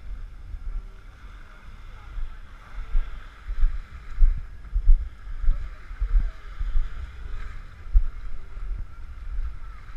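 Wind buffeting the camera microphone in irregular low gusts, over a steady background hiss.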